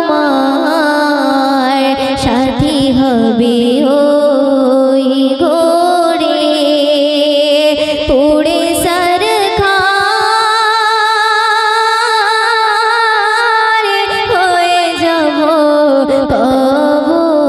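A young woman's solo voice singing a Bengali gojol (Islamic devotional song) into a handheld microphone, amplified. She holds long, ornamented notes with vibrato and slides between pitches.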